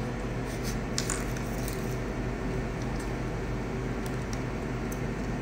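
Steady low hum of an indoor room, with a few faint clicks and crinkles from handling food wrappers and plastic drink bottles.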